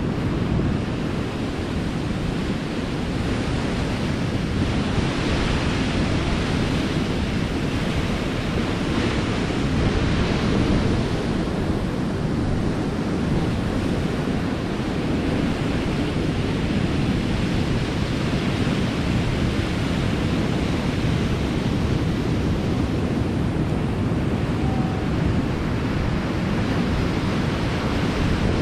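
Surf breaking and washing over a rocky, cobbled shore in a steady roar that swells as each wave comes in, with wind buffeting the microphone.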